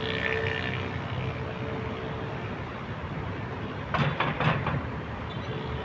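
Urban traffic ambience: a steady hum of road traffic, with a quick clatter of three or four sharp knocks about four seconds in.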